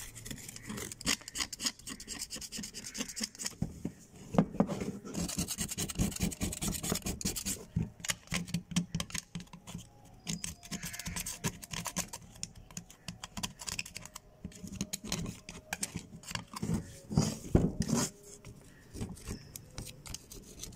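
Flat metal scraper blade scratching hardened, caked-on soil off a revolver in many quick, short strokes, as the crust of dried dirt is chipped away from the metal.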